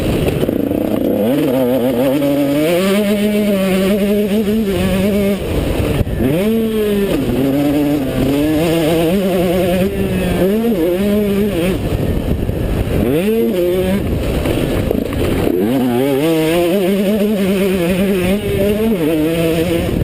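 KTM two-stroke motocross bike engine revving hard under full throttle, its pitch climbing in steps through the gears, then dropping sharply as the throttle is rolled off and rising again, several times over. A low rush of wind on the microphone runs under it.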